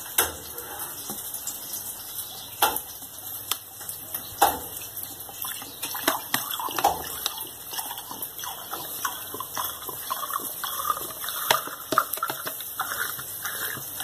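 Vinegar glugging and gurgling out of an upturned plastic bottle into a glass jar of water through the second half. A few sharp clicks and knocks come before it, in the first half.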